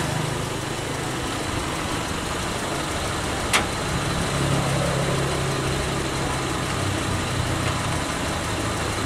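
Mitsubishi Kuda's 1600 cc engine idling steadily on a swapped-in Toyota Kijang 7K carburetor, drawing fuel from an external fuel can. A single sharp click about three and a half seconds in.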